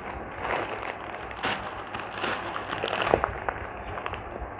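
Plastic grocery packets crinkling and rustling irregularly as they are handled and moved about.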